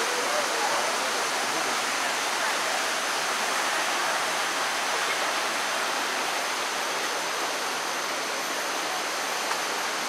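A stream rushing steadily over rocks, an even, unbroken sound of flowing water.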